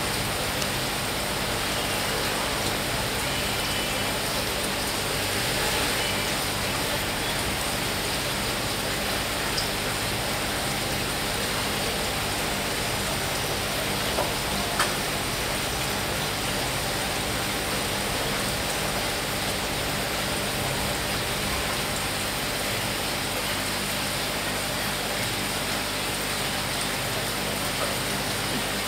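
Water running through aquarium filtration, a steady even hiss like light rain, over a faint low hum. A few soft clicks about ten and fifteen seconds in.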